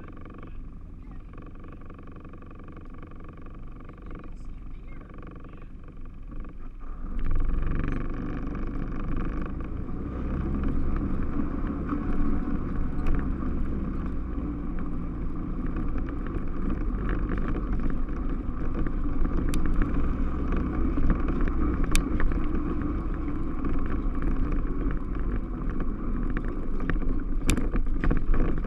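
Yamaha Rhino 660 side-by-side's single-cylinder engine running quietly, then pulling away about seven seconds in and driving on steadily, with a few sharp clicks and knocks along the way.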